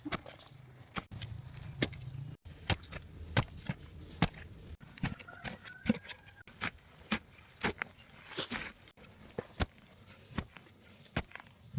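A series of sharp taps and clicks at irregular intervals, every half second or so, over a faint low hum.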